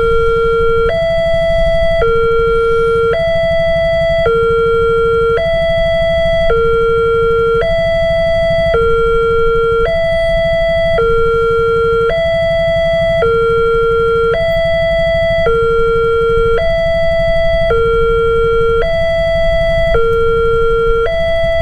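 Railway level crossing's electronic warning alarm sounding two steady tones that alternate high and low, each held about a second, warning that a train is approaching. A steady low rumble runs underneath.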